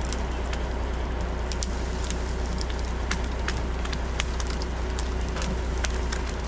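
Steady low drone of a heavy machine's engine running at idle, with irregular sharp crackles and clicks scattered over it, a few each second.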